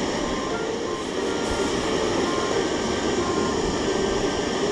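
Single-burner camping gas stove running under a pan of oil being heated for frying, a steady even hiss.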